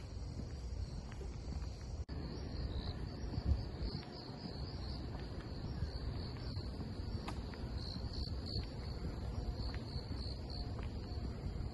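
Cicadas in the roadside trees droning steadily at a high pitch, over a low rumble of wind and handling noise from walking with the phone, with a brief bump a few seconds in.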